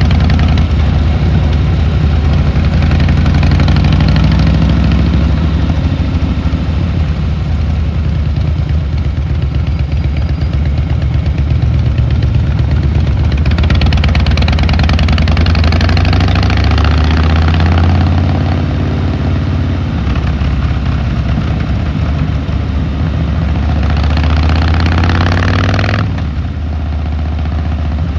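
Harley-Davidson Fat Boy Lo's V-twin engine and exhaust running under way. The throttle opens about a third of the way in and eases off a few seconds later. It opens again near the end, then shuts off abruptly and the engine runs on more quietly.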